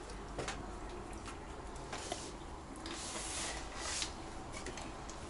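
Quiet room with soft rustling and a few faint small clicks, like handling sounds.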